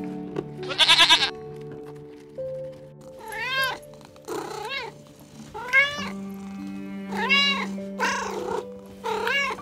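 A short bleat about a second in, then a cat meowing about six times in rising-and-falling calls, over soft background music.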